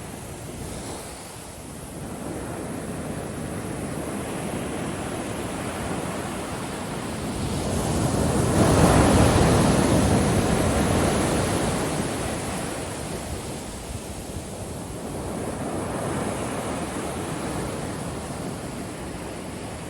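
Ocean waves breaking on a beach: a steady wash of surf with one larger wave building about seven seconds in, crashing at its loudest around nine seconds, then receding, with smaller swells before and after.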